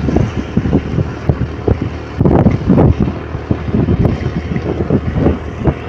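Wind rushing and buffeting over the microphone on a moving motorbike, with the bike running underneath in a low, rough rumble.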